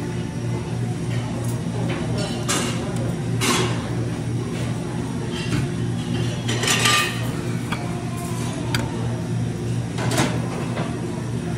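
Metal soup ladle clinking against a stainless-steel soup well and a bowl while miso soup is ladled out, several sharp clinks and a splash of pouring soup over a steady low hum of the room.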